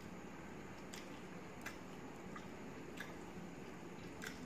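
Eating by hand from a steel plate: a few faint, sharp clicks as fingers mix rice and chicken liver against the plate, over a steady low hiss.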